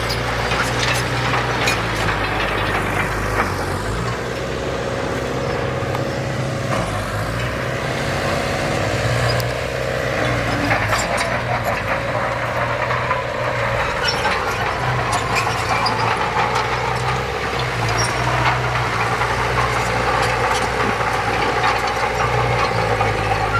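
Heavy diesel earthmoving machinery running steadily, with frequent short clanks and rattles over the engine note.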